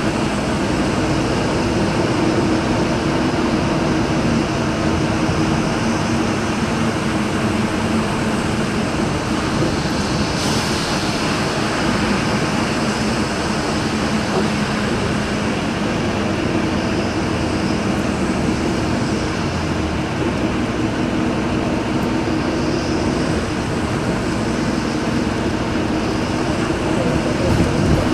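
Steady cabin noise inside a moving vehicle: a low engine hum under an even rush of road and tyre noise on a wet road.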